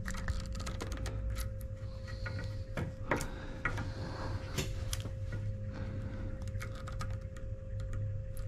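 Irregular small clicks and taps of rag-padded pliers gripping and working a spacer out of a Power Pole Blade arm, over a steady low hum.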